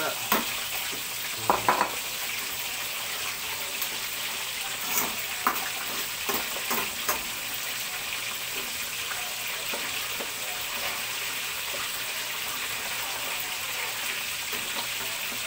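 Steady sizzling from a wok of coconut milk over hot oil while a metal ladle stirs it, clinking against the pan a few times in the first seven seconds.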